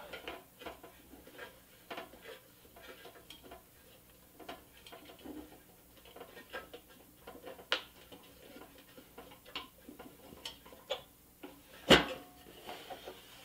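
Small scattered clicks and light scraping of a whitewall insert and hub cap being pressed onto a steel toy truck's wheel by hand, with a single louder knock near the end.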